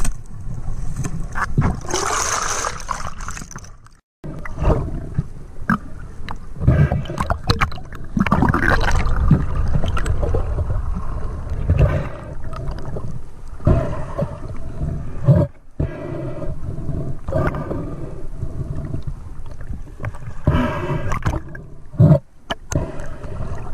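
Water sloshing and gurgling around the microphone, with low rumbling and scattered knocks; the sound cuts out briefly three times.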